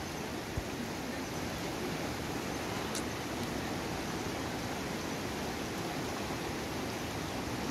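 Steady rush of a fast mountain stream running over rocks, with one small knock about half a second in.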